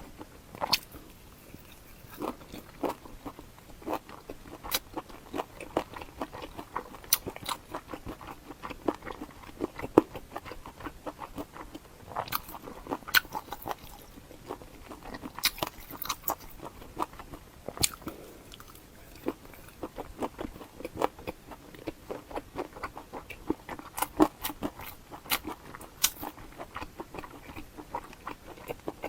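Close-miked eating sounds: a person chewing and biting food, with many irregular wet mouth clicks and crunches.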